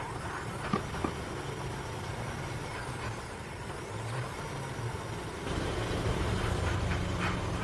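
A steady low mechanical hum, like an engine running, with a few light clicks in the first second; it grows louder about five and a half seconds in.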